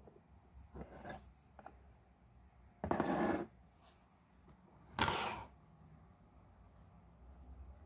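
Handling noise as a clear acrylic display cover is lifted off a small wooden diorama base: two short rubbing, scraping sounds about two seconds apart, with a few faint taps and rustles before them.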